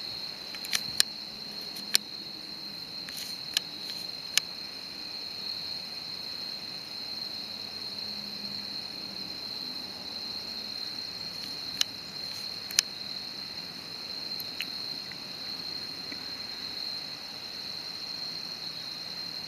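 Steady, high insect trill of an evening cricket chorus, unbroken throughout. A few sharp clicks land in the first few seconds and twice more later.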